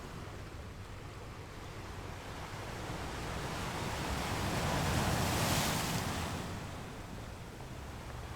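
Sea waves washing, a rushing surge that swells to a peak about halfway through and fades again, over a steady low rumble.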